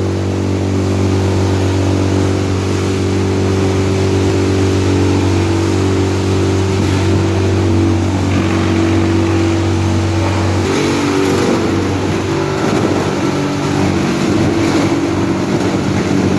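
Drum wood chipper running with a steady engine hum. From about eight seconds in the sound turns rougher and more irregular, and the deep low tone drops away a few seconds later.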